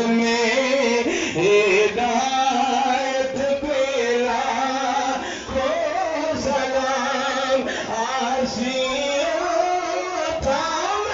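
A man's voice reciting a naat, sung in a melodic line of long held and wavering notes, amplified through loudspeakers.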